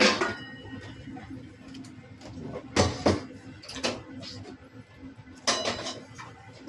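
A few sharp knocks and clatters of household objects: one at the start, a pair about three seconds in, another a second later, and a short cluster about five and a half seconds in.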